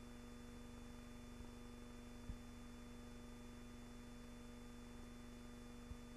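Near silence: a steady electrical hum with hiss from the recording, broken only by two faint low bumps, one a little after two seconds in and one near the end.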